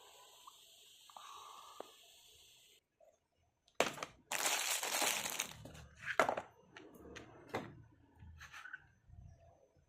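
Chocolate wrapper being crinkled and torn open. A sharp rip about four seconds in leads into a second or so of loud crackling, then scattered smaller crackles and clicks.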